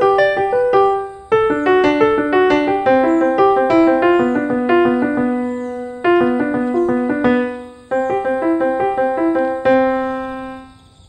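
Background piano music: a gentle melody of struck notes over chords, played in short phrases that each fade away before the next begins.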